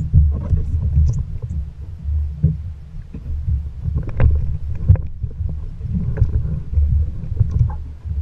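Muffled, uneven low rumble of a small boat at sea, with a few short knocks about four and five seconds in.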